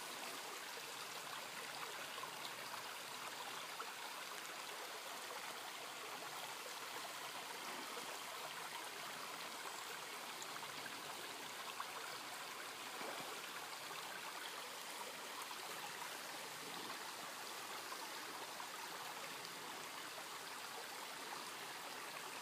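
Low, steady rush of flowing creek water.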